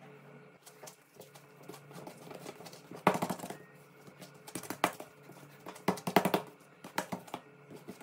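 Hands pressing and kneading shortcrust dough on a silicone baking mat: faint handling at first, then a few sharp knocks and thumps at uneven intervals from about three seconds in.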